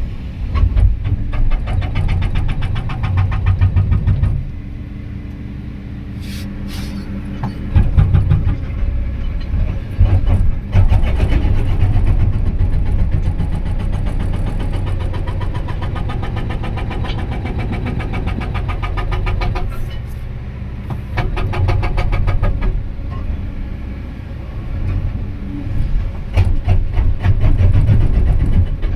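Excavator-mounted hydraulic breaker hammering rock in bursts of rapid, evenly spaced blows lasting a few seconds each, over the excavator's diesel engine running steadily between bursts.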